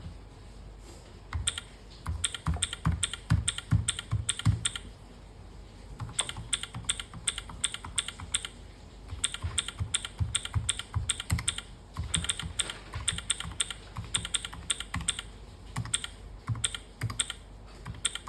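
Typing on a Keychron V6 Max mechanical keyboard: quick runs of keystrokes in bursts of a few seconds with short pauses between them, each stroke a sharp click with a deep undertone. It starts about a second and a half in.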